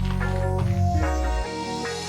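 Electronic background music with a heavy sustained bass line and a rising sweep over it; the bass drops out about three-quarters of the way through, building toward the next beat.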